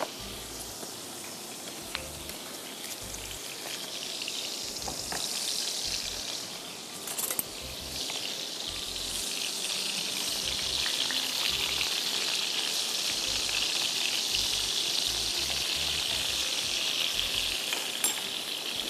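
Seekh kebabs shallow-frying in very hot oil in a frying pan: a steady sizzle that grows louder over the first few seconds, with a brief knock about seven seconds in.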